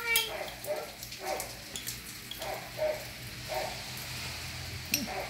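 An animal giving short calls, one every half second or so, with a couple of sharp clinks of a metal spoon against a glass jar as a cherry is fished out.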